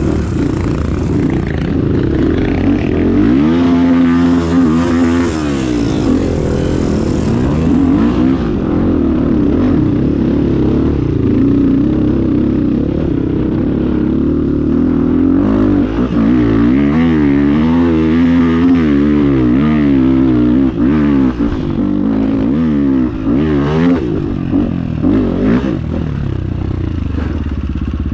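Trail motorcycle engine running under load, its pitch rising and falling again and again as the throttle is opened and closed over rough ground.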